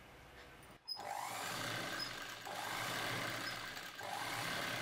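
Electric sewing machine running steadily, stitching through layered fabric around a neckline, easing off briefly twice.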